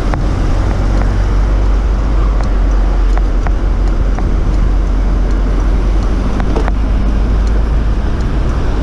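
Steady low rumble of a bicycle riding along a city street, heard through a handlebar-mounted action camera: wind and road noise on the microphone, with car traffic alongside. A few light clicks sound here and there.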